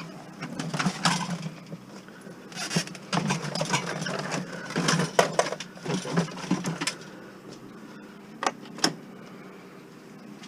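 Clattering and rattling of hard objects being handled, ending in two sharp knocks, over a steady low hum.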